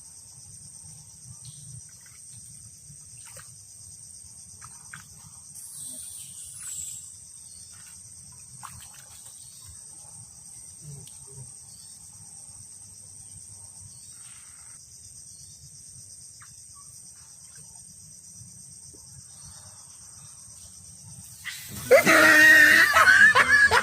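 Insects chirring steadily, a constant high buzz. Near the end a sudden loud vocal outburst breaks in, a quick run of pitched cries.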